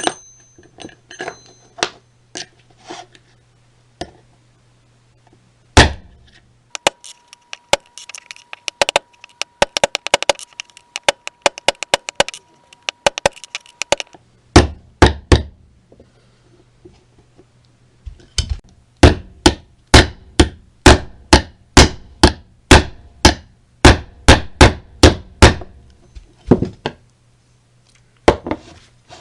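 Hammer striking metal repeatedly. There are scattered taps at first and a quick run of small rattling clicks in the middle, then a steady series of blows about two a second.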